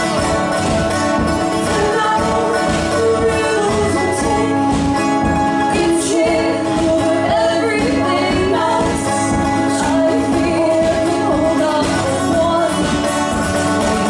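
Live folk song: a woman singing lead over a strummed acoustic guitar and a mandolin.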